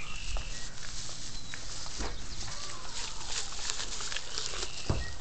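Horses munching hay right at the microphone: irregular crunching and rustling of the dry hay, with a dull knock near the end.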